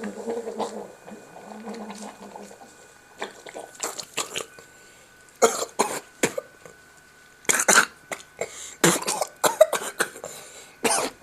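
A person coughing and sputtering while choking on a mouthful of Coke and Mentos foaming up. There is a low gurgle in the first couple of seconds, then repeated harsh coughing fits a second or two apart.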